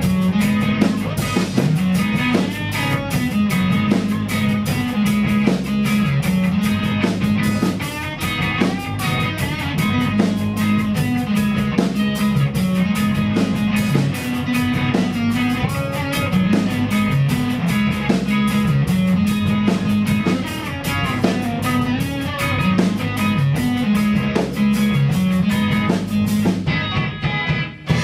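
Live rock band playing an instrumental passage: guitar over bass and a drum kit. The drums and cymbals break off briefly near the end, then the band comes back in.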